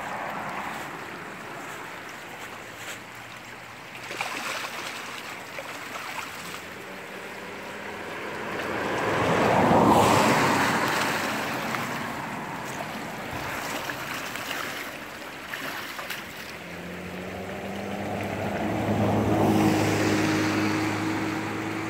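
Shallow creek water rippling steadily over stones. Vehicles pass by, swelling and fading about halfway through and again near the end; the second carries a low engine hum.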